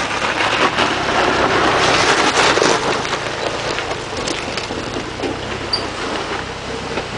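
Jeep Wrangler Rubicon creeping down a steep dirt slope: a low engine idle under the crunch and grind of its tyres over loose dirt and stones, loudest in the first few seconds.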